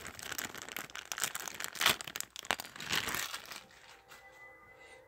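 Plastic packaging crinkling and rustling in quick, dense crackles as small toy parts are handled, dying away about three and a half seconds in.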